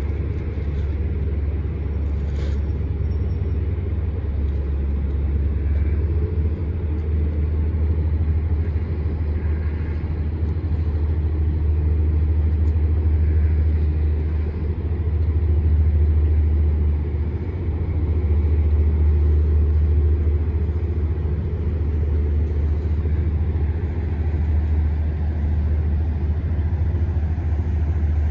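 A boat's engine running steadily, a deep low rumble that swells and eases slightly.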